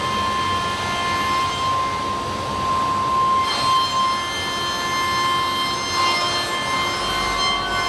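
High-speed milling spindle of a five-axis machining centre cutting aluminium: a steady high whine with several higher tones over a hiss of cutting noise, briefly rougher a few times as the cutter works.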